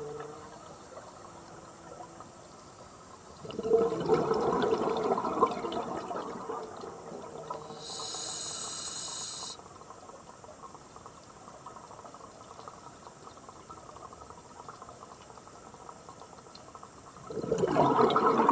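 Scuba diver's regulator breathing underwater: a gurgling rush of exhaled bubbles a few seconds in, a brief steady hiss of an inhale about halfway through, then another bubble exhalation starting near the end.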